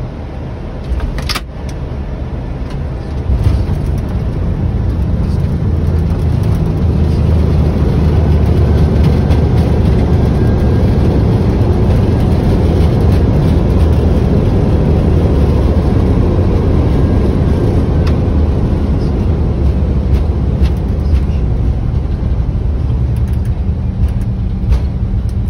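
Airbus A320 rolling out on the runway after touchdown, heard inside the cockpit: a dense low rumble of engines and wheels that builds over the first several seconds and then holds steady. There is one sharp knock about a second in.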